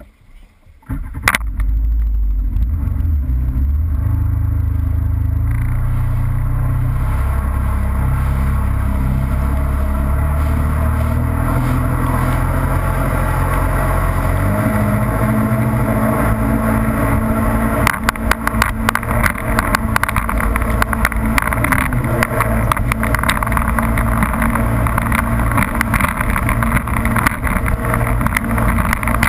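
Jet ski engine starting about a second in and running, its pitch stepping up several times as the throttle opens and the craft speeds up. From about two-thirds of the way through, rapid knocks and hiss from the hull hitting the chop and the spray come in on top.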